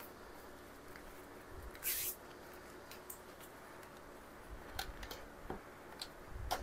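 Faint kitchen handling sounds: a short hissing rustle about two seconds in, then a few light clicks and taps near the end.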